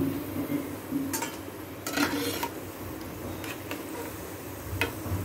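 Onion bondas sizzling in hot oil in a kadai, with a metal spatula clinking and scraping against the pan several times as they are lifted out.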